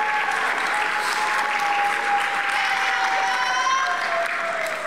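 Audience applauding steadily, with one long held cheer over the clapping that drops in pitch near the end.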